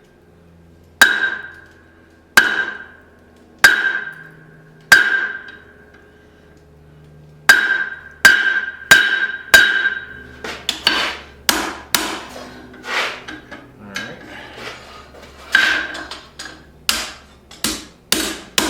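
Hammer blows on a hot steel bar over the sharp edge of an anvil, each with a bright ring: forging a set down into 1/2-inch square stock. The blows come slowly at first, about every second and a half, then faster with lighter taps in between from about seven seconds in.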